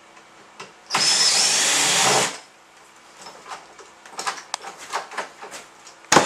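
Cordless drill/driver running for about a second and a half, driving in lockset screws, followed by light clicks and knocks of the door hardware being handled and a sharp click near the end.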